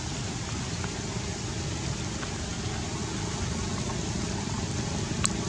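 Steady outdoor background noise, with one short sharp click about five seconds in.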